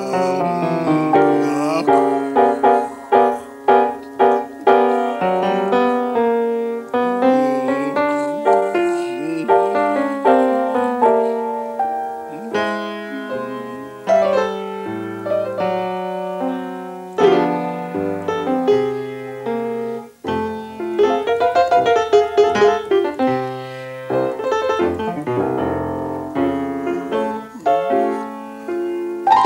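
Grand piano played solo in jazz style, with a run of sharp, repeated chord stabs in the first few seconds, then flowing chords and right-hand lines.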